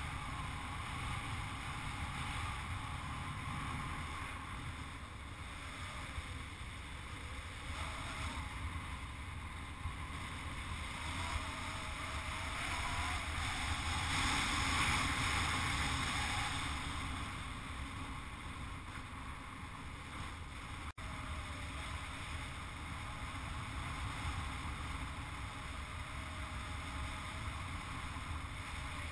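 Wind noise on a hang glider's microphone in flight: a steady rushing rumble that swells louder for a few seconds around the middle, with a split-second dropout about two-thirds of the way through.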